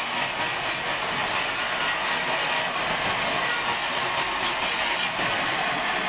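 Sawmill band saw running and cutting lengthwise through a large log as it is fed along the table: a steady, even saw noise with the hiss of the blade in the wood.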